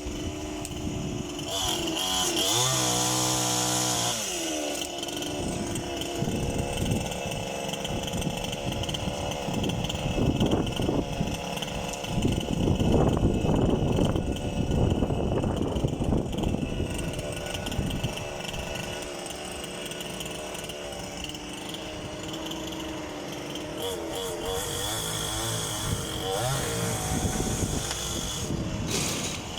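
Energoprom PCB-16 petrol chainsaw running throughout, its engine pitch rising and falling as it is revved, with a louder, rougher stretch in the middle as it cuts through poplar wood.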